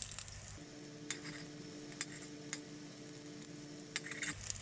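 Banana fritters sizzling as they deep-fry in hot oil, with a few light clicks scattered through. A faint steady hum comes in about half a second in and stops near the end.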